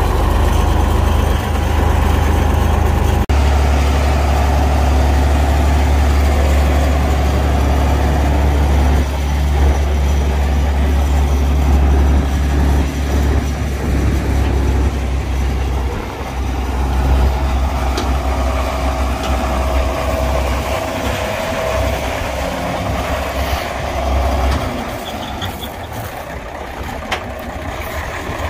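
John Deere 5010 tractor's diesel engine running with a steady deep drone. There is an abrupt break about three seconds in, and the deep part of the drone drops away about 25 seconds in, leaving a lighter engine sound.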